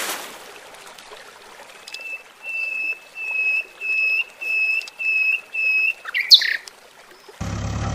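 A bird calling one short clear note over and over, about seven times at roughly two a second, then one louder harsh call that sweeps up and down. The tail of a splash and faint running water sit under it at the start.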